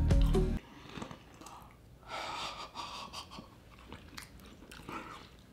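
Chewing a mouthful of white fudge-covered Oreo cookie, with soft crunching and breathing. A short music sting cuts off about half a second in.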